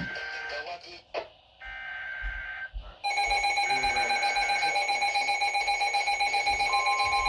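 Emergency Alert System activation: short buzzy data-header bursts, then about three seconds in a loud, steady alert attention tone that holds on.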